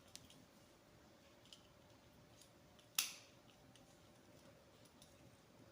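Near silence with a few faint clicks of wire and tool handling, and one sharp click about three seconds in, as a wire is fastened to a screw terminal on a timer relay.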